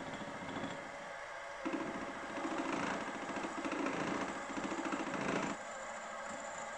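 Milling machine spindle running, with an end mill cutting a keyway into the end of a metal shaft: a rougher, louder cutting chatter for about four seconds starting under two seconds in, then back to the steady sound of the spindle running.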